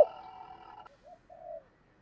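Spotted dove cooing: a loud coo cuts off right at the start, followed by a quieter stretch with two faint, short coo notes about a second in.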